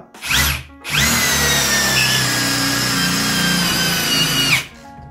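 Aimsak 22V cordless hammer drill driver blipped briefly, then run for about three and a half seconds driving a 200 mm self-drilling screw. The motor whine sags slightly under load before stopping abruptly.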